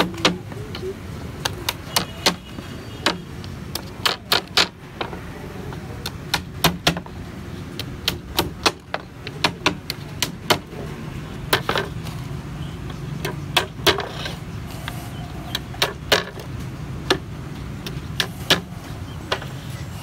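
Claw hammer driving nails through thin wooden floor planks into a cage frame: dozens of sharp knocks at an uneven pace, often in quick runs of two or three, over a steady low hum.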